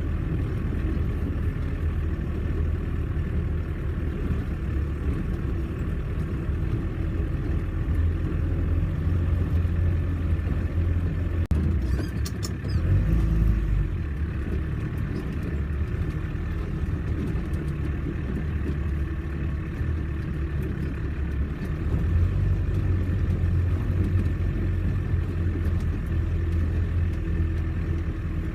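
Four-wheel-drive vehicle's engine running steadily at low revs, with a brief clatter and a shift in the engine note about twelve seconds in.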